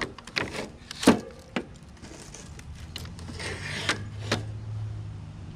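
Knocks and clatter of a window air conditioner's copper-tubed coil being lifted and shifted against its sheet-metal casing, the loudest knock about a second in and a few lighter clicks later. A low steady hum runs underneath and grows in the second half.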